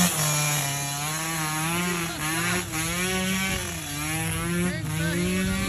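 Small minibike engine running hard under throttle, its buzzing pitch rising and falling as the rider works the throttle.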